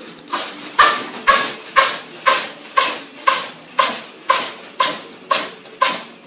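Domestic cat sneezing over and over in quick succession, about a dozen short sharp sneezes evenly spaced at about two a second.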